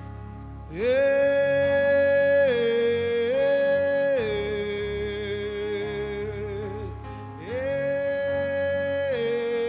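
A gospel worship song sung by a solo voice over soft instrumental backing. The voice comes in about a second in on a long high note that dips and rises again, then settles on a lower held note that wavers near its end, and the same phrase starts again near the end.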